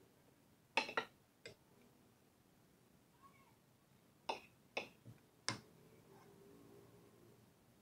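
A few sharp clicks and knocks of hard objects: three soon after the start, then four in quick succession around the middle.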